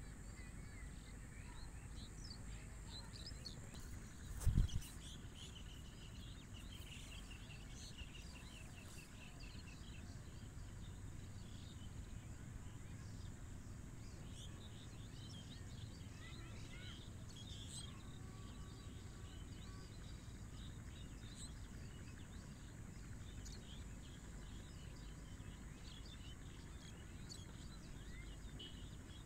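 Rural outdoor ambience: scattered bird chirps over a steady low rumble, with one loud, low thump about four and a half seconds in.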